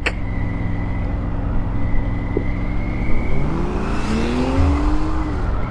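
A noisy car engine accelerating: a steady engine hum and road noise, then about three seconds in the engine revs up, its pitch rising, before easing off near the end.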